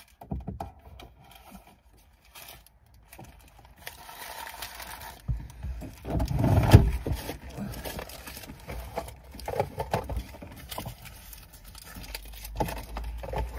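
Rustling, scraping and small knocks of someone reaching about inside a car's cabin, clearing out rubbish, with a loud low rumbling thud about six to seven seconds in.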